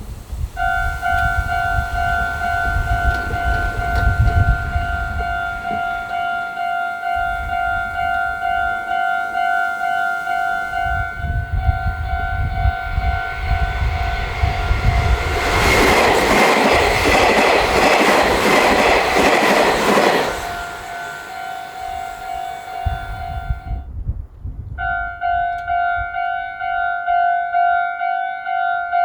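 Japanese railroad crossing warning bell ringing its steady electronic kan-kan over the low rumble of a train going by. About halfway through, a loud rush of train noise swells for several seconds. Near the end the bell stops for a moment and then starts again.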